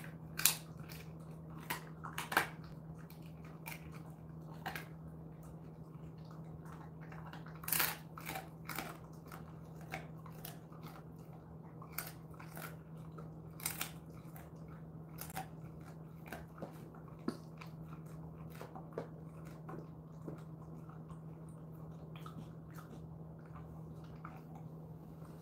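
A Jindo dog crunching and chewing a dried chicken foot: irregular crisp crunches, coming thick in the first half and thinning out toward the end. A steady low hum runs underneath.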